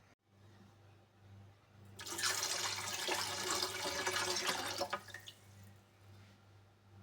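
Water running from a tap for about three seconds, then turned off, over a low steady hum.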